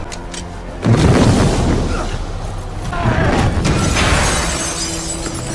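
Film sound effects over score: a heavy boom hits about a second in, followed by dense crashing and rushing noise with music under it.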